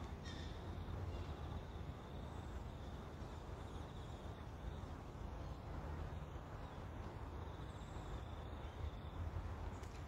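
Quiet outdoor ambience: a steady low rumble with faint high bird chirps and trills now and then.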